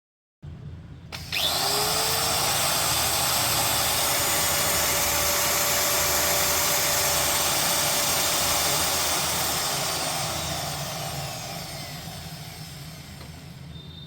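DongCheng DSM08-100 800W 4-inch angle grinder switched on about a second in, whining up to speed and running steadily, then switched off and spinning down with a falling whine. It is the test run after its 6201 bearing was replaced.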